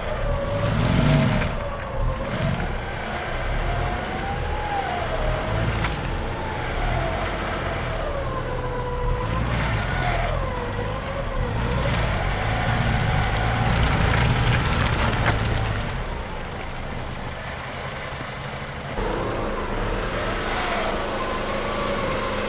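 Off-road vehicle engine revving up and down again and again under load, over a steady rushing noise, as the vehicle struggles at an obstacle.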